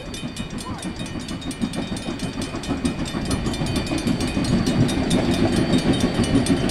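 Steam locomotive JB 1236 working its train away, with a low chuffing exhaust and running gear rumble that grow louder as it approaches.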